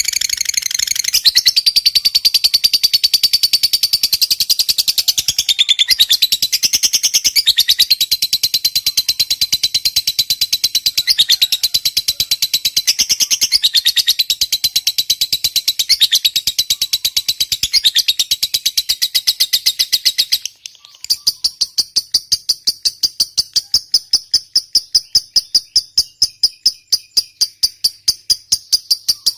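Lovebird giving its long chattering trill (ngekek panjang), a loud, fast, unbroken train of shrill notes. It stops abruptly about two-thirds through, and after a short gap a second rapid, thinner trill begins.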